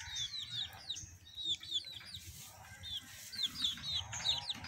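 Young chickens peeping: a run of short, high, falling peeps, several a second, growing busier near the end.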